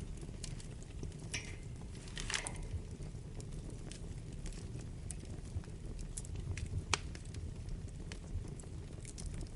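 Wood fire burning in a fireplace: a steady low rush with scattered crackles and pops, a brief hissing flurry about two seconds in and one sharp pop near seven seconds.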